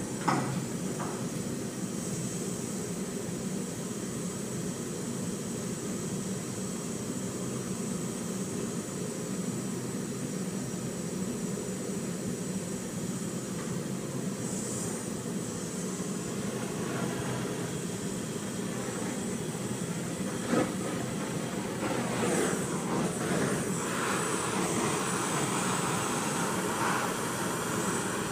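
Steady rushing noise of a workshop fume extraction system running, with a gas brazing torch burning. There is a sharp knock just after the start and another about two-thirds through, and more handling noise in the last few seconds.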